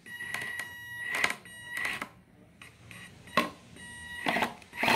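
HSP Pangolin 1/16 4x4 RC crawler's electric drive whining at a steady high pitch in short throttle bursts as it crawls over an obstacle. Several sharp knocks and clatter come from the tyres and chassis hitting the obstacle.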